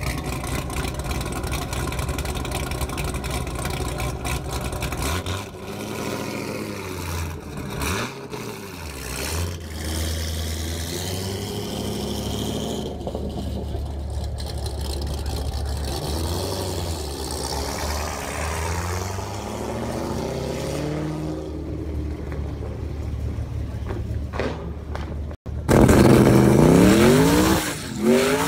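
A C7 Corvette's V8 idling with a steady, deep exhaust note, then revved and driven away, the pitch rising and falling from about five seconds in. Near the end it cuts to a turbocharged Corvette accelerating hard, much louder, its engine note sweeping up through the gears.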